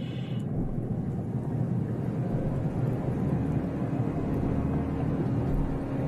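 A low, steady rumbling drone, with a faint held tone joining about three seconds in.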